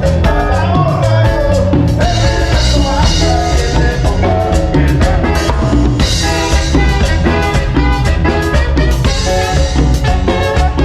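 Live cumbia band playing loud, with drum kit and percussion keeping a steady beat under the melody.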